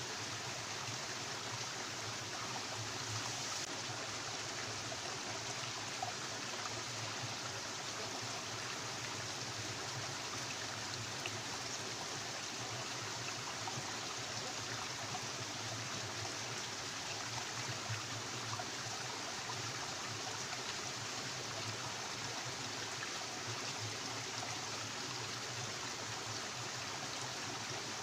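Stream water running steadily, an even, continuous flow noise.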